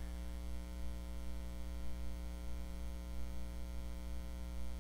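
Steady electrical mains hum with a buzz above it, unchanging throughout.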